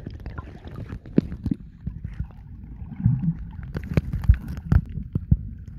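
Sea water heard through the microphone of a camera held underwater: a low, muffled rumble broken by sharp knocks and clicks every second or so, with a brief bubbly gurgle about three seconds in.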